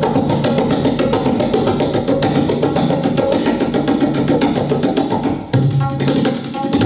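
Tabla played in a fast, unbroken stream of strokes with deep bass-drum notes underneath, imitating the rhythm of a train's coaches running over the rails. The flow dips briefly about five and a half seconds in, then carries on.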